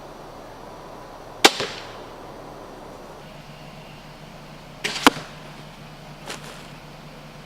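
Crossbow shots: a sharp snap about a second and a half in with a smaller knock right after it, then a second sharp shot about five seconds in that comes as two quick knocks. A fainter knock follows about a second later.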